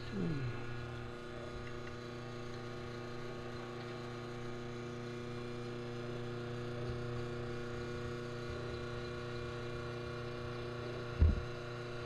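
A steady electrical hum made of several even tones, holding level throughout, with one short knock near the end.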